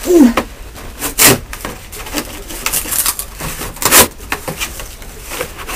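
Cardboard shipping box being opened and handled: flaps scraping and flexing, with several sharp rustling knocks, the loudest near the start, about a second in and about four seconds in.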